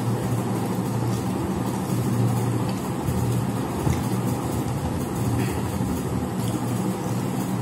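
A steady low hum over even background noise, with a few faint soft clicks from eating with the hands at metal plates.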